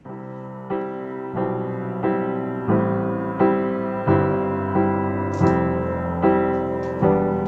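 Background music: a slow piano piece that starts abruptly, with notes struck at an even pace about once every three-quarters of a second.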